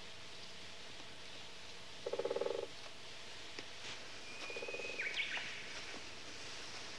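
Outdoor wildlife calls over a faint steady background: a short, rapidly pulsing croak about two seconds in and another about four and a half seconds in, with a thin high whistled call around the second croak that drops in pitch as it ends.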